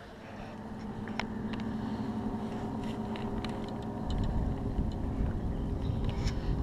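A boat motor running at a steady pitch, growing louder over the first couple of seconds. From about four seconds in, a low rumble of wind and water on the microphone joins it.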